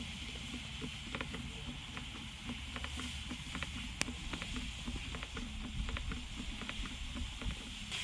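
Hand gear-oil pump being worked to fill an outboard's lower unit, with many short, light clicks over a low steady background.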